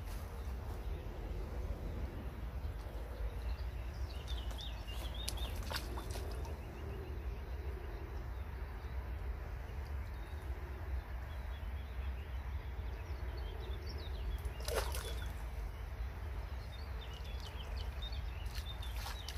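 Outdoor bankside ambience: a steady low rumble with scattered small bird chirps, and one sharper sound about fifteen seconds in.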